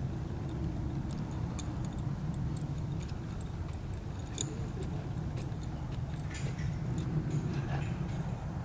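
Light, irregular clicking a few times a second, typical of a walking horse's bit and bridle hardware clinking, over a steady low rumble.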